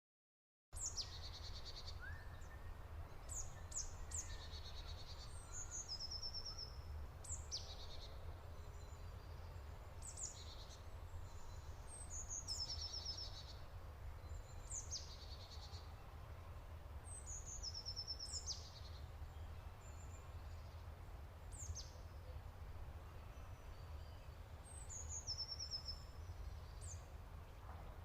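A leafbird singing: short phrases of high notes sweeping downward and quick rattling trills, repeated every two to three seconds, over a steady low rumble.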